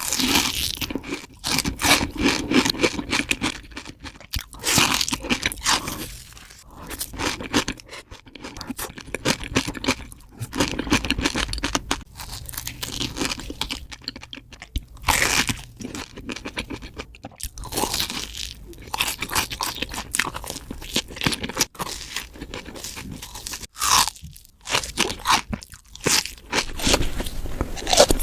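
Close-miked crunchy eating: biting into and chewing Dubai-style chocolate bars filled with pistachio cream and crisp kunafa pastry, a dense crackle of crunches in repeated bursts, sped up to double speed.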